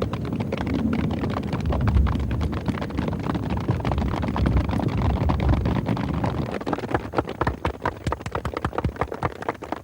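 A large group imitating a rainstorm with their hands and bodies: a dense patter of slaps and thumps at the height of the 'storm', thinning after about six and a half seconds into scattered sharp clicks as the rain dies down.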